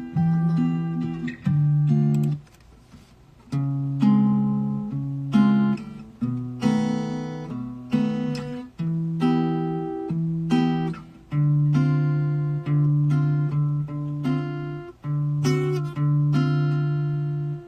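Acoustic guitar played live, chords strummed one after another and let ring, with a short pause about two and a half seconds in.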